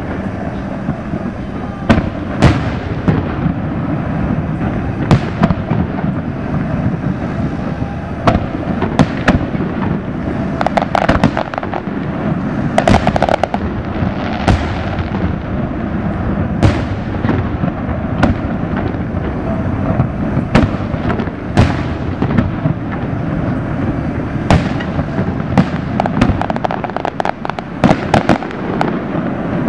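Aerial fireworks display: a long irregular series of shell bursts banging, some trailing off in an echo. Denser runs of rapid crackling come around ten and thirteen seconds in, over a constant low rumble.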